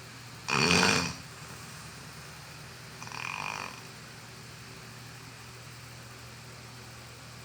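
A person snoring: one loud snore about half a second in and a softer, shorter one about three seconds in, over a steady low hum.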